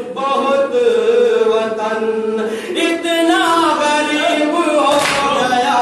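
Men's voices chanting a nauha, a Shia mourning elegy in Urdu, unaccompanied by instruments, with a lead reciter singing through a microphone.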